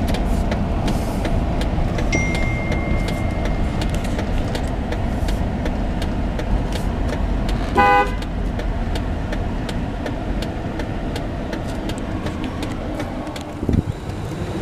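Steady cabin noise from inside a car moving at low speed: engine and tyre rumble with the air conditioner running. About eight seconds in comes a short horn toot.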